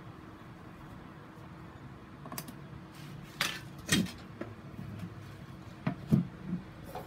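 Plastic knocks and clicks as a plastic grid mounting board is handled and shifted on a plastic crate. The knocks are scattered, the loudest about four and six seconds in, over a faint steady hum.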